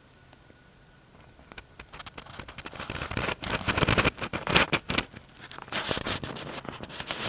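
Dense crackling and rustling close to the microphone. It starts about a second and a half in, builds, and is loudest around the middle.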